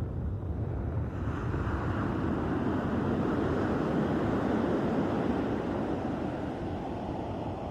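Sea surf: a wave builds about a second in, its wash strongest midway and easing off toward the end, over a steady low rumble of wind on the microphone.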